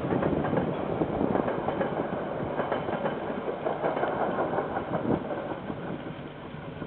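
A KiwiRail train running past on the rails, a steady rattle with many short knocks that slowly fades away.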